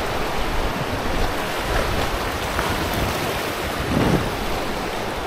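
River water rushing and churning through a shallow stretch of rapids around a drifting raft, a steady loud wash, with wind buffeting the microphone.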